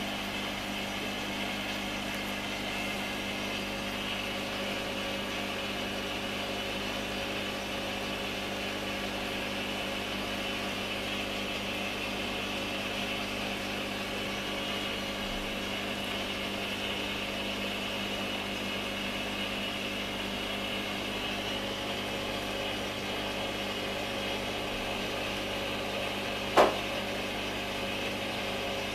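Aquarium pump humming steadily, a motor drone with a hiss above it. A single sharp knock near the end.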